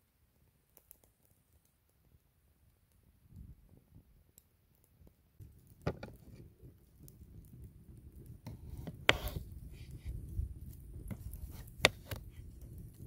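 A kitchen knife slicing raw potatoes on a wooden cutting board, the blade knocking sharply against the board about three times, over a low rumble. Before that, a few faint ticks from a birch-log fire.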